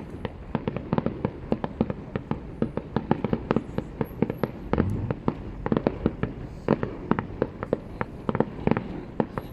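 Fireworks display: aerial shells bursting in a rapid, irregular run of sharp bangs, several a second, over a low rumble, with a deeper boom about halfway through.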